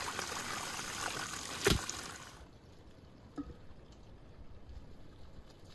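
Running water pouring over raw cow-tail pieces being rinsed by hand in a bowl and metal colander, with one sharp knock about 1.7 s in. The water stops about two seconds in, leaving a faint outdoor background.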